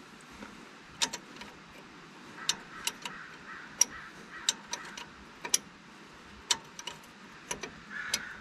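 Scattered light metallic clicks and taps, irregular and roughly one a second, from hand and tool work on a brake line flare nut as it is threaded into the back of a brake caliper.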